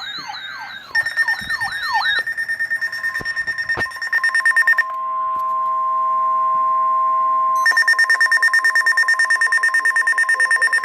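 Weather alert radios sounding a severe thunderstorm warning alert. A warbling siren alarm stops about two seconds in. A fast, high-pitched beeping alarm follows, and the steady 1050 Hz NOAA Weather Radio warning tone plays alone for a few seconds in the middle before the beeping comes back.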